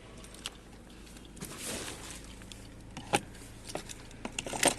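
Handling noise inside a car cabin: a few faint sharp clicks and a brief rustle.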